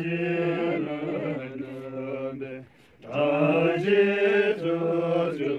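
Tibetan Buddhist prayer chanting on long, held notes over a steady low pitch. It breaks off briefly a little before the middle and comes back louder.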